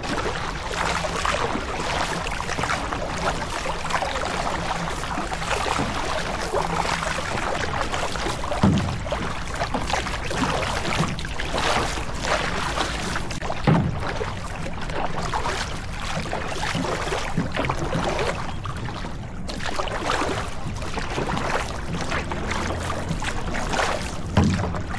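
Water rushing and splashing along the bow of a stand-up paddleboard as it moves under paddle strokes, swelling unevenly. There are three short low thumps.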